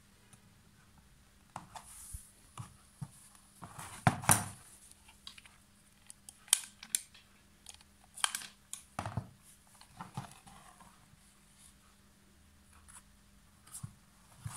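Handling noise of MDF panels and a small speaker being fitted together with a hot glue gun on a tabletop: scattered knocks, clicks and scrapes. The loudest knocks come about four and six and a half seconds in.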